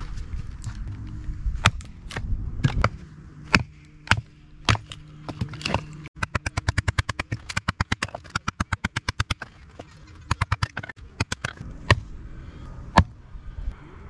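A Fiskars hatchet striking and splitting firewood on a stump chopping block: sharp, irregular knocks and cracks of wood splitting. Split pieces clatter together in a rapid run of knocks a little after the middle.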